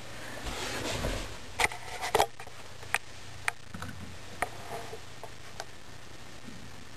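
Handling noise as a power cord and plug are picked up and moved: rustling for a second or two, then a scattering of sharp clicks.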